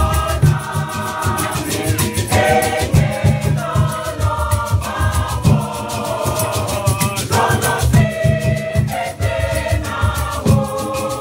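Choir singing a danceable Ewe song, with African hand drums and rattles keeping a steady beat.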